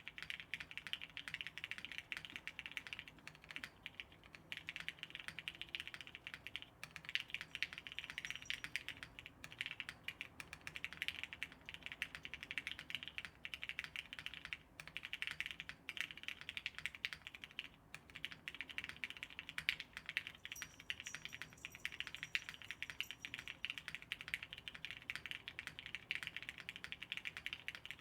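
Mechanical keyboard with lubed Hyperglide Cherry MX Black linear switches in a top-mounted polypropylene plate, typed on quickly and continuously with a few brief pauses.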